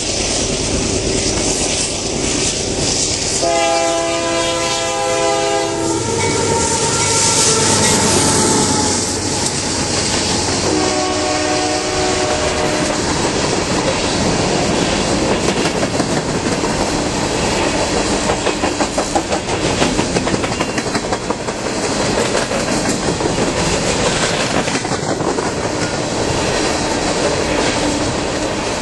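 Union Pacific diesel-hauled coal train working upgrade: the locomotive's air horn sounds a multi-note chord for about two and a half seconds, then a shorter blast, as the engine approaches and passes. Then a long line of coal gondolas rolls by, with steady wheel rumble and clickety-clack over the rail joints.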